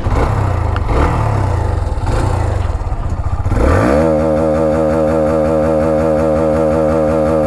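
Hero Xtreme 125R's single-cylinder 125 cc engine heard through its exhaust: running at low revs with a couple of short blips, then revved up quickly a little past halfway and held steady at high rpm.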